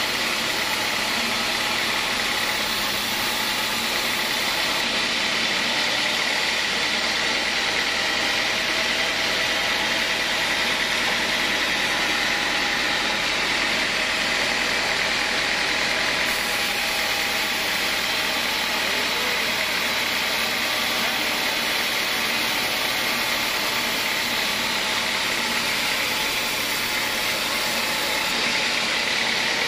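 Homemade band sawmill running with its blade ripping lengthwise through a hardwood acacia beam: a loud, steady, unbroken sawing noise with a high singing tone over the motor.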